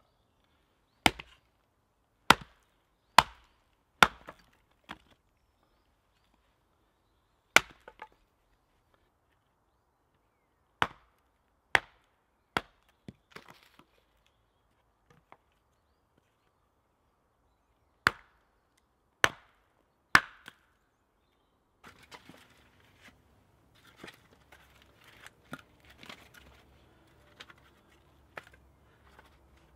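Hatchet chopping small logs into kindling on a wooden chopping block: about a dozen sharp wood-splitting strikes in irregular groups, stopping about twenty seconds in. After that come softer, scattered knocks and rustling of split wood pieces being handled and set down.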